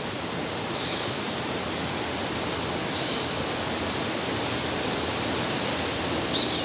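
Steady outdoor nature ambience: an even rushing hiss with a few faint, high bird chirps scattered through it, the brightest near the end.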